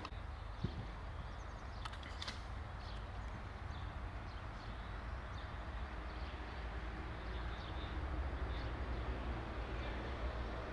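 Outdoor background noise: a steady low rumble and hiss, with faint short bird chirps scattered through and a single knock about half a second in.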